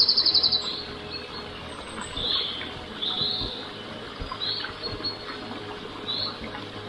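Small songbirds chirping in woodland: a quick high trill at the start, then short high calls roughly once a second.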